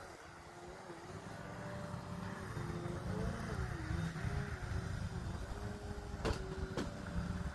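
Remote-control airplane's motor droning in flight, its pitch wavering up and down as it manoeuvres, growing louder over the first few seconds. Two sharp clicks near the end.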